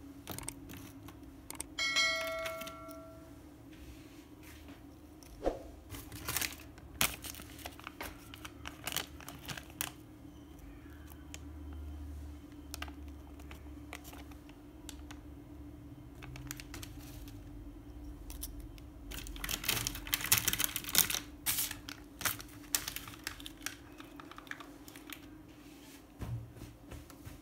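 Plastic biscuit wrapper and plastic tray crinkling and clicking as they are handled, with the densest crinkling about two-thirds of the way through. A short ringing tone sounds about two seconds in, over a steady low hum.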